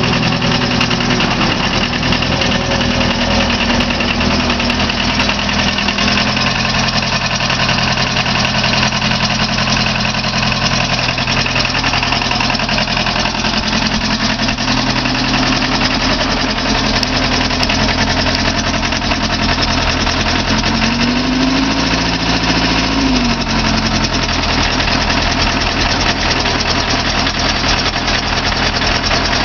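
Takeuchi compact track loader's diesel engine running steadily. About 21 seconds in it revs up briefly and drops back.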